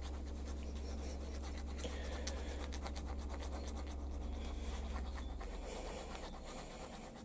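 Half-round needle file scraping lightly over and over at the edge of a drilled metal hole, deburring it, over a steady low hum that fades after about five seconds.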